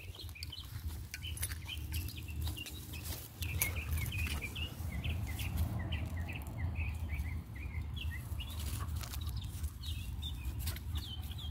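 Birds chirping repeatedly in quick short notes, over the scratching of a straw broom swept across dry pine needles and sandy ground, with a low wind rumble on the microphone.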